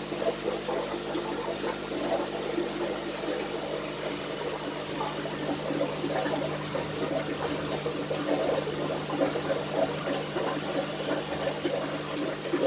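Aquarium aeration bubbling steadily: a continuous fizzing, crackling stream of air bubbles through the tank water, with a steady low hum underneath.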